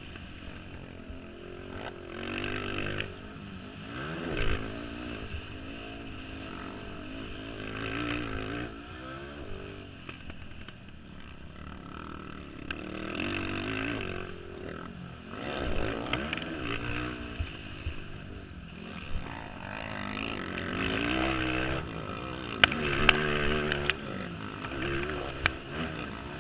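Racing ATV engines revving up and down over and over as quads work around a motocross track, several engines overlapping. A few sharp clicks come near the end.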